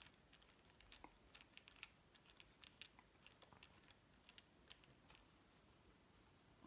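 Faint, irregular small clicks and ticks as a precision screwdriver turns a tiny T10 Torx screw out of a car's gear lever.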